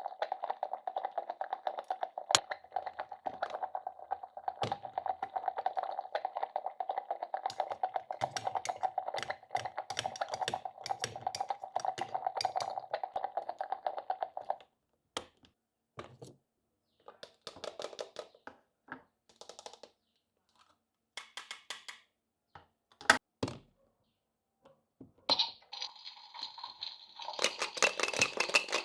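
Small plastic toy kitchen pieces being handled: a steady buzzing rattle for about fifteen seconds, then scattered clicks and taps with short pauses, one sharp click, and a busier rattle near the end.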